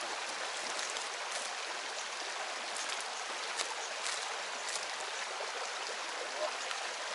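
Fast mountain river water rushing over stones: a steady, even hiss, with a few faint clicks on top.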